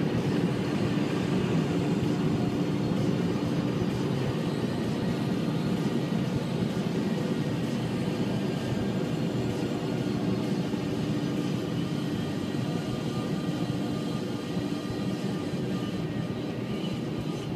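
Car wash air dryer blowers running, heard from inside the car: a steady rush of air with a constant hum, easing off slightly toward the end.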